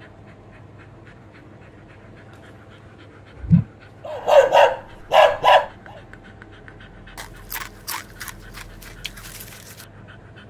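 A dog panting rapidly, with a low thump about three and a half seconds in, then two loud bursts of dog noise and, a little later, a run of short sniffs.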